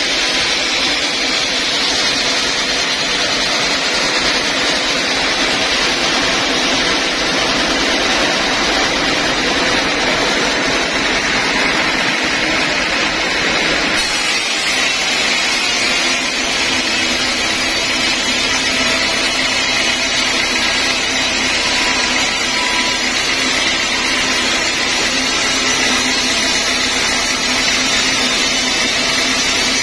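Band sawmill running, its blade cutting lengthwise through a large log with a steady loud machine whine and rushing noise. The tone changes abruptly about halfway through.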